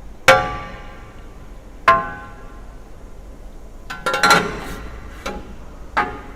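Metal clanks of a thick aluminium window profile being handled and knocked against a saw bed, each one ringing briefly like a struck bar: two single knocks, then a quick rattle of several about four seconds in, then two more.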